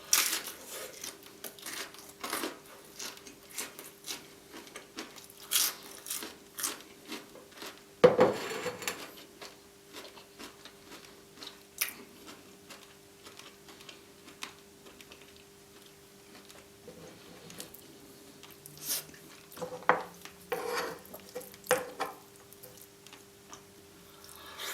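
Close-miked eating: irregular chewing and crunching sounds mixed with clinks and scrapes of cutlery and dishes, the loudest clatter about eight seconds in, over a faint steady hum.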